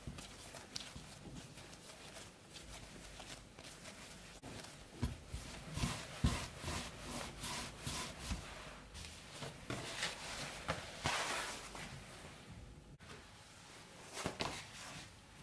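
Hands kneading and rounding a ball of soft dough on a tabletop: faint rubbing and patting with a few dull thuds, the loudest about five to six seconds in.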